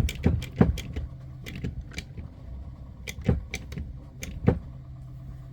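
Irregular clicks and sharp knocks from a hand crimping tool being worked on a 1/0 copper cable lug, with a few louder knocks: at the start, half a second in, and about three and four and a half seconds in. A low steady hum runs underneath.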